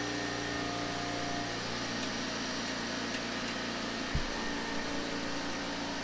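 Steady low machine hum, with a single click about four seconds in.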